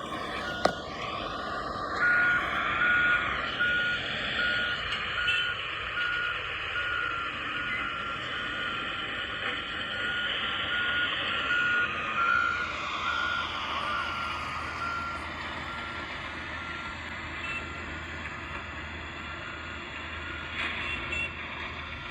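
A vehicle's reversing alarm beeping steadily at one pitch over engine and traffic noise, with a sharp click about half a second in.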